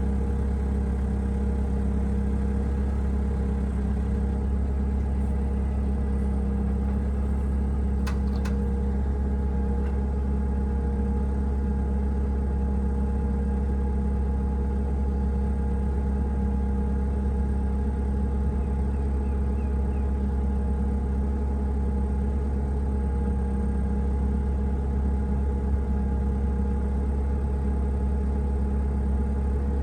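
An engine idling steadily with a low rumble and an even, unchanging hum, and two brief clicks about eight seconds in.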